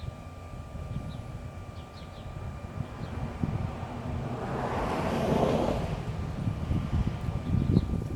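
Handling noise of adhesive protective film being pressed and rubbed onto a bicycle frame's bottom bracket: a low rumble throughout, with a swell of rustling about halfway through.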